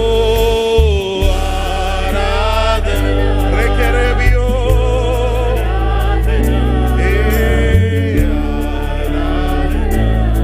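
Malayalam Christian worship music: sung voices holding and sliding between long notes over a band with steady bass and regular drum hits.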